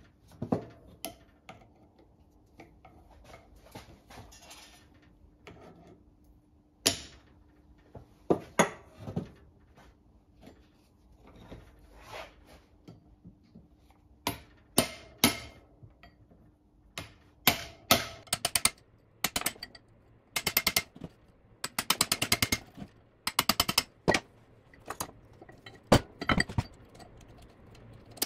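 Steel hammer blows and metal clinks at the bearing end of a Chrysler 8 3/4 drive axle shaft as the old bearing is worked off: irregular sharp strikes, with runs of quick light taps about two-thirds of the way through.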